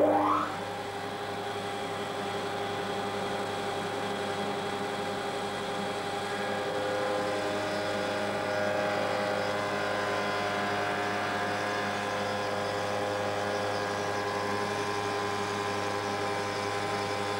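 Woodworking router's motor spinning up with a short rising whine, then running steadily as its cutter mills a profile into a wooden block. A steady hum with several held tones and a hiss of cutting.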